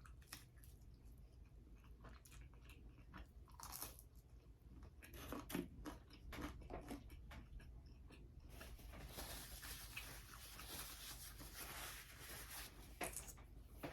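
Faint chewing and biting of pizza: soft crunches and small mouth clicks scattered irregularly.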